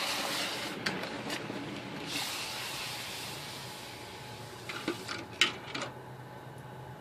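Hot aluminium casting quenched in a pot of water, hissing loudly as it goes in, surging again about two seconds in, then fading. A few sharp clinks of metal about five seconds in.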